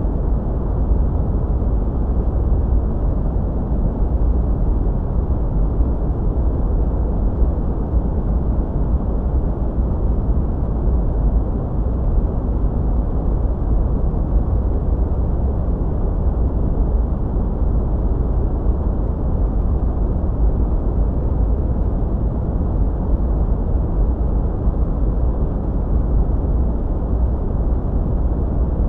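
Steady, unbroken noise of a sleep-aid white-noise track, deep and rumbling, strongest in the bass and dull in the treble, with no changes.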